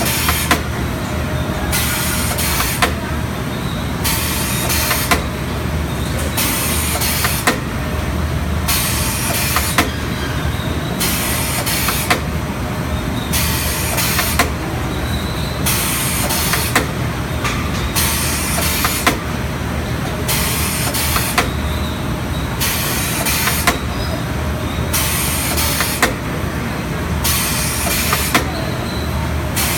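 STEEN ST 828 poultry drumstick deboning machine running over a steady low hum, with a hiss that comes and goes about every second and a half and sharp clicks as the drumsticks are processed.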